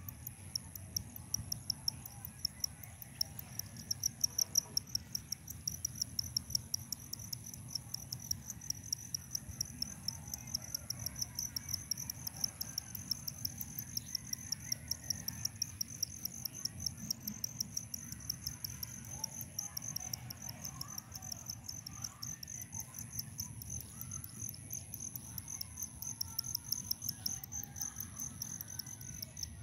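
Insects trilling steadily in rapid pulses, a high chirring with a thin, even higher whine above it, over a low steady rumble.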